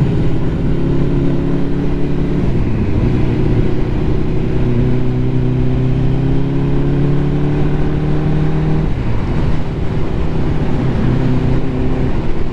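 Ducati motorcycle engine running under way, its pitch climbing slowly through the middle, with marked shifts in pitch about two and a half seconds in and again near nine seconds.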